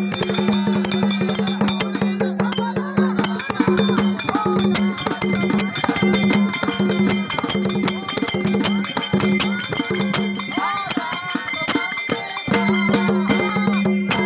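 Dhangari folk devotional music: large hand-beaten dhol drums played in a fast, driving rhythm, with small bells on the drums jingling and a voice singing over them.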